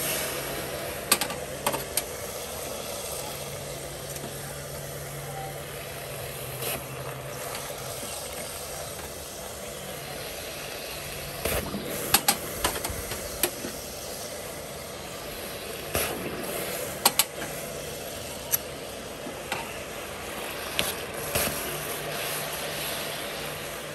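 Stainless steel tongs and spatula swished and knocked about in a bucket of soapy water, with sharp metal clinks every second or few, bunched around the middle and two-thirds through, over a steady low hum.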